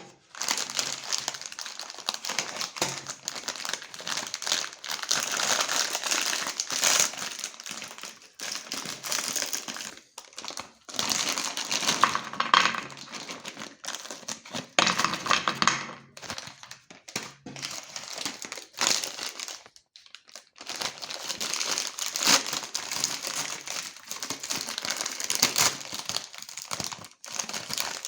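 Meat grinder crushing cookies and candy: dense crunching and crackling in irregular bursts, with a few short pauses.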